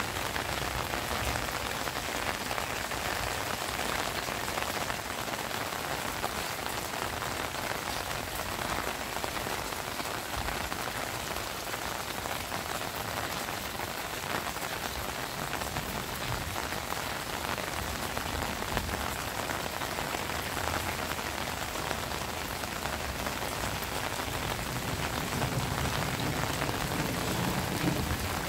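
Heavy rain falling steadily, with a low rumble of thunder building near the end.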